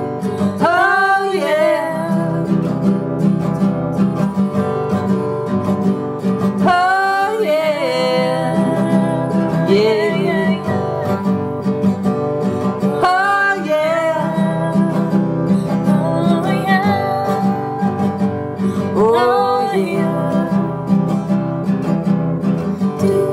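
Background song on strummed acoustic guitar, with a sliding melody line that returns about every six seconds and no sung words.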